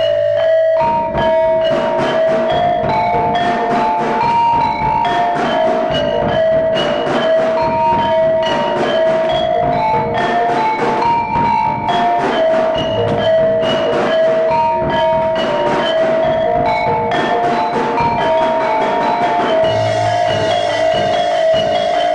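Dance accompaniment music of fast, densely struck mallet percussion playing a repeating pitched melody.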